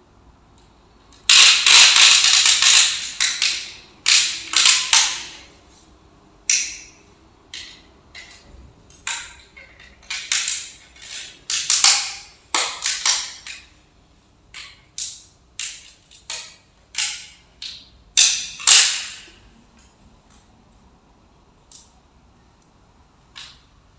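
Hand work on stair-step LED strip fittings: a run of irregular scraping and rustling noises, a few lasting a second or more, between many short clicks and scrapes.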